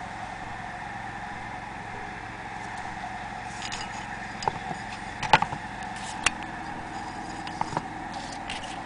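A handful of separate sharp metal clicks and knocks from handling the crank and handwheel of a Willcox & Gibbs hand-crank sewing machine, the loudest a little past halfway. A steady background hum runs underneath.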